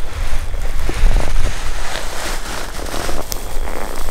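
Footsteps crunching and rustling through dry prairie grass during a slow stalk, many small crackles over a steady low rumble.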